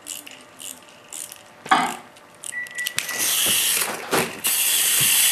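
Clockwork of a wind-up hopping toy buzzing in short bursts about twice a second as it hops. There is a sharp knock just under two seconds in, then a loud steady rushing noise takes over in the second half.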